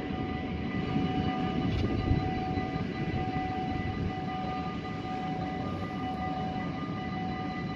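Electronic EBA level-crossing warning bells ringing steadily, several constant high tones, while the crossing barriers rise after a train has passed. A continuous low rumble lies beneath.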